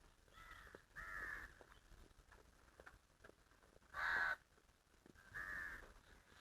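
Sheep bleating: four short, quavering calls, the loudest about four seconds in.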